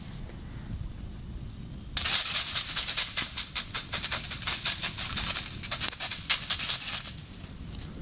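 Seasoning shaken from a shaker over a raw fish fillet on aluminium foil: a quick rattling run of shakes, with grains pattering on the fillet and foil, starting about two seconds in and stopping about a second before the end.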